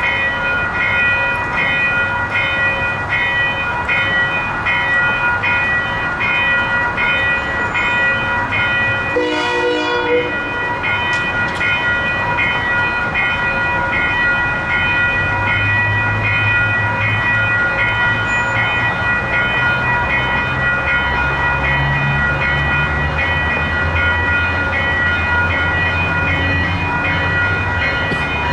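Railroad crossing signal bells ringing in a rapid, steady repeating ding while the crossing is active. About a third of the way in a brief horn sounds, and from about halfway a low rumble builds as a train approaches.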